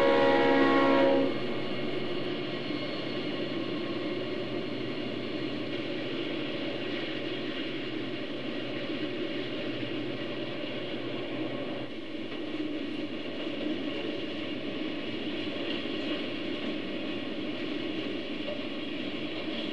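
A diesel locomotive horn sounds a chord that cuts off about a second in, followed by the steady running rumble of the HO-scale model freight train rolling past.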